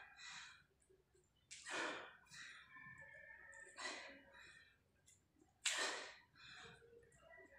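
A man's forceful exhalations during diamond push-ups: three sharp, breathy huffs about two seconds apart, one with each rep.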